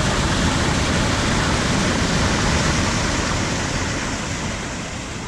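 Waterfall: a steady rush of falling water, easing a little toward the end.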